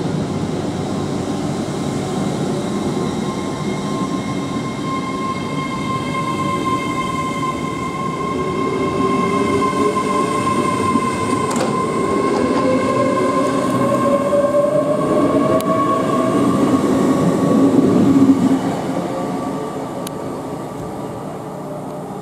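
Great Western Railway Class 800 ten-car train accelerating away from the platform: a rumble of wheels on rail under a steady high hum from the traction equipment, with a whine that climbs in pitch as the train gathers speed. It grows louder as the carriages pass, then falls away sharply near the end.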